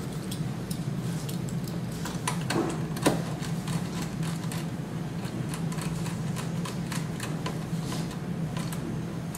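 Small screwdriver and fingers working the screw terminals of stepper motor drivers: scattered light clicks and ticks, a few louder ones about three seconds in, over a steady low hum.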